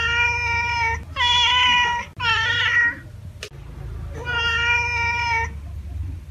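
Domestic cat meowing: three meows in quick succession, the third bending up and down in pitch, then a sharp click and, after a pause, one longer meow, over a low steady hum.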